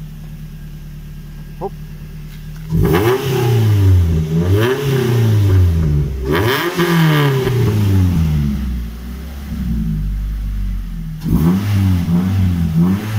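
Ford Fiesta ST engine idling, then revved in a run of quick blips from about three seconds in, each rising and falling in pitch. It eases back for a couple of seconds and is blipped again near the end.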